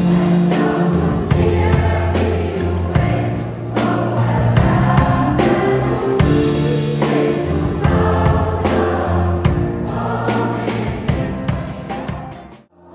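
A large youth choir singing with a live band, a drum kit keeping a steady beat under sustained low notes. The music breaks off abruptly shortly before the end.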